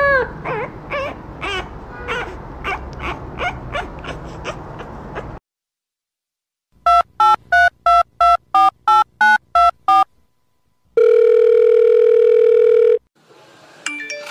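A French bulldog puppy's short, high whining cries, about two or three a second, for the first five seconds. After a pause come about ten short telephone keypad beeps, roughly three a second, then a steady telephone tone held for about two seconds, added as a sound effect.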